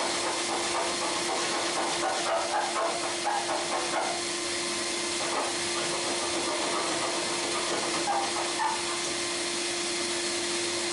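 Steady hissing noise with a constant hum underneath, and a few faint taps and clicks.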